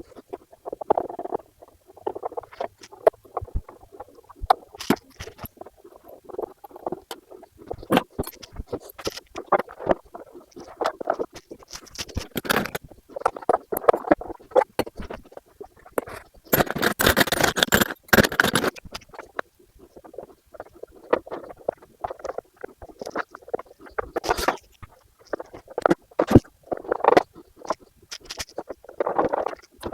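Handling noise as parts are pulled out of a fiberglass RC boat hull: irregular clicks, knocks and rustling. About seventeen seconds in there is a harsh rasping noise lasting a couple of seconds.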